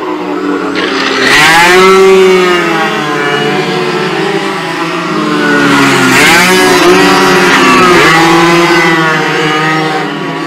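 Racing motorcycles passing at speed, several engines running high in the revs at once, their pitch swooping down as they go by. The loudest passes come about two seconds in and again from about six to eight seconds in.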